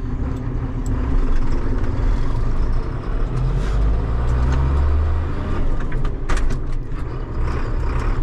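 John Deere 7800 tractor's six-cylinder diesel engine heard from inside the cab, picking up from idle to about a thousand rpm as the tractor pulls away, with a rise in pitch about three seconds in. A few sharp clicks about six seconds in.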